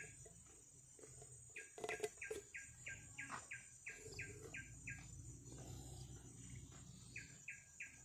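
Faint calls of forest insects: a steady high-pitched drone, with runs of short chirps repeated about three times a second. About two seconds in come a few clicks and knocks of a metal oil-filter bowl being handled.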